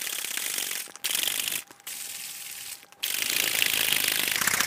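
Plastic shaker bottle of milk and whey protein powder shaken hard by hand, the liquid sloshing and rattling inside. It goes in four spells with short breaks between them.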